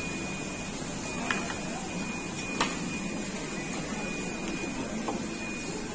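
Steady hiss and hum of seafood-tank aeration, water churning and bubbling in the baskets, with a thin steady high whine and a couple of sharp clicks, about a second and a half and two and a half seconds in.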